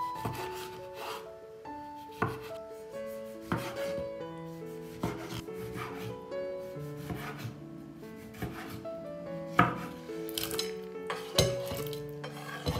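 Kitchen knife dicing tomatoes on a bamboo cutting board: the blade cuts through and knocks on the wood in irregular strikes about once a second, with a few louder knocks near the end. Soft background music with sustained notes plays underneath.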